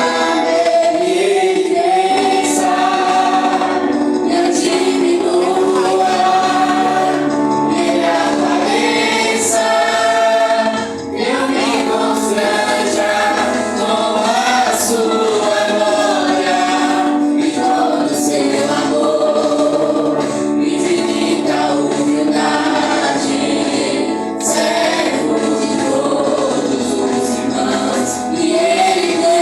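A choir sings a Christian worship song over musical accompaniment, with long held notes.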